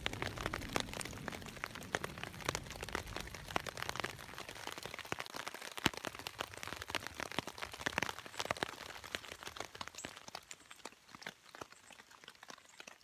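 Raindrops hitting a tarp overhead, heard from underneath as a dense, irregular patter of sharp ticks. The tail of a low thunder rumble dies away in the first few seconds. The drops thin out toward the end.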